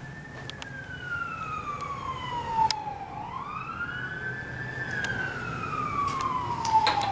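An emergency-vehicle siren in a slow wail. Its pitch slides down, swings back up about three seconds in and slides down again. A few faint clicks sound over it.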